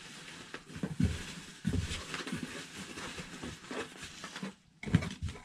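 Rustling and irregular knocking of items being handled and packed inside a cardboard shipping box, with a few sharper thumps, the loudest near the end.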